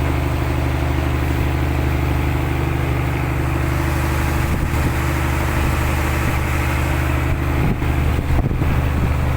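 Fishing boat's engine running steadily at an even pitch, with a few light knocks near the end.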